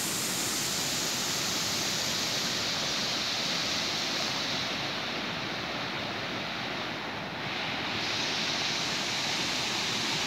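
Small rocky mountain stream rushing over stones: a steady, even rush of water.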